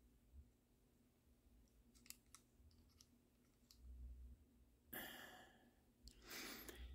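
Near silence with a few faint clicks from a digital caliper being handled on a small connecting rod, and a short soft exhale about five seconds in.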